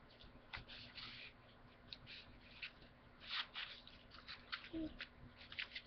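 Sheets of origami paper rustling and flicking as a stack is leafed through by hand, in short irregular crinkles, the loudest about three seconds in.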